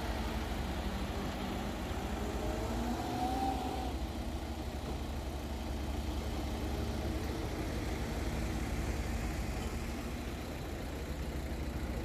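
Diesel engine of a loaded Hyundai dump truck running as it drives away on a dirt track, a steady low rumble, with the pitch rising briefly about three seconds in.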